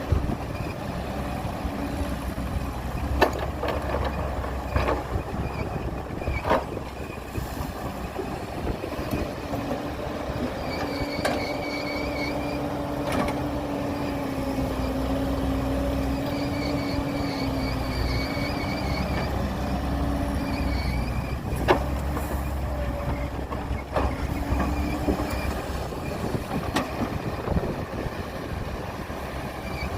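Heavy diesel earthmoving machinery running steadily, with a low rumble and a whine that drifts slowly in pitch. Several sharp knocks come through, the loudest twice.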